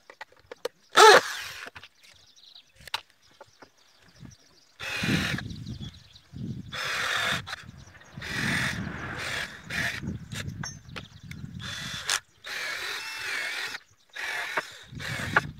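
Cordless drill running in repeated short bursts of about a second each, stopping and starting as it bores or drives into a wooden chair slat. A brief, loud, high-pitched squeal comes about a second in.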